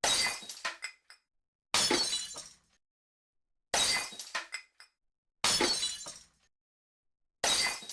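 Glass smashing five times, about every two seconds: each a sudden crash that fades over about a second into a few scattered tinkles of falling shards, with silence between.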